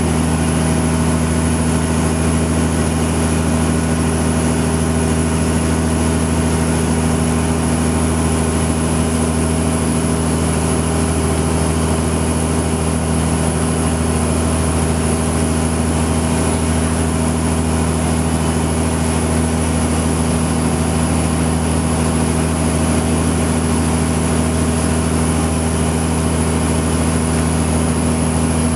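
Fishing boat's engine running steadily, an even low hum that never changes.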